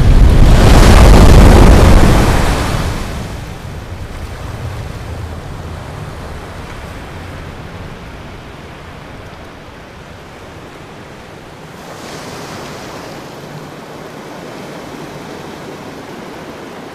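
A loud low rumble over the first three seconds or so, settling into the steady wash of sea surf over rock, which swells again about twelve seconds in.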